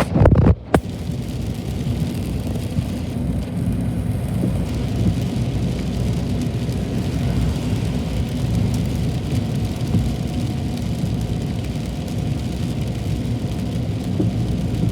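Heavy rain falling steadily, a dense, even rush. A few loud thumps come in the first second.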